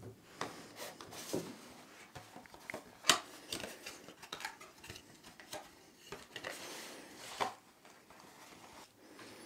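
Cardboard packaging being handled: a foam insert and a card sleeve slid out of a headset box with scrapes and taps, then a cloth drawstring pouch rustling as it is pulled out. A sharp knock about three seconds in is the loudest sound.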